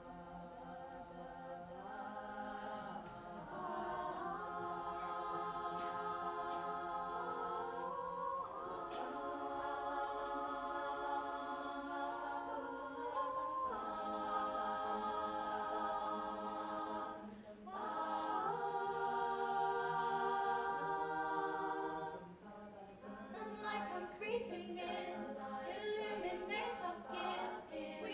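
All-girl youth a cappella group singing unaccompanied in close harmony: sustained chords over a held low note, swelling up over the first few seconds. Near the end the singing turns choppier and more rhythmic, with short clipped notes.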